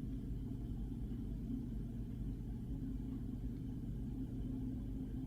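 A steady low hum with no other events.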